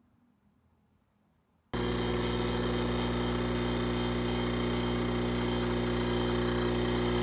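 A machine hum, steady and loud at one unchanging pitch, starts suddenly about two seconds in and runs on without change.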